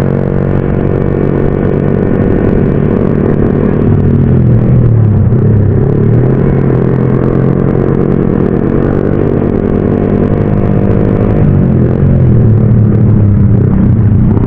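Motorcycle engine running steadily while riding, heard from on the bike, its pitch rising and falling twice with the throttle: once about four seconds in and again near the end.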